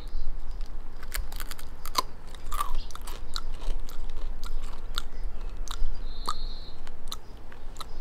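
A person biting and chewing the tip of an arm of a deep-fried Amur starfish: a run of irregular sharp crunches. It chews gritty, like sand, rather than crisp.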